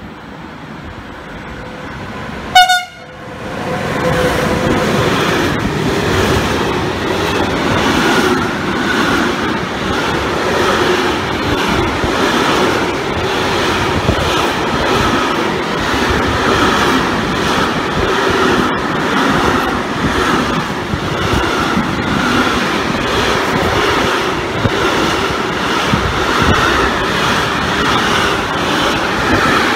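Train passing close by: a brief horn blast about two and a half seconds in, the loudest moment, then a long, steady rush of wheels on rail with repeated clicks over the rail joints.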